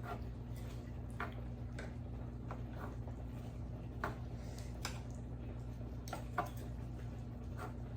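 Eating soup: scattered small clicks and taps of a spoon, with chewing, over a steady low hum.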